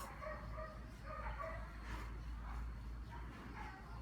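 Dog giving short, high whining calls over and over during its bath, over a steady low hum.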